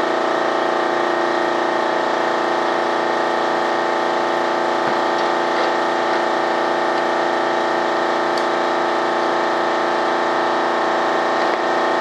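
Air compressor running steadily, a constant hum made of many steady tones, with a few faint ticks about midway.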